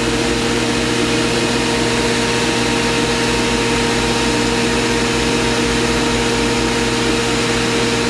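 Steady hum of a running industrial microwave tempering system's cooling-water pump and electrical cabinet: an even machine noise carrying several constant electrical hum tones, unchanging throughout.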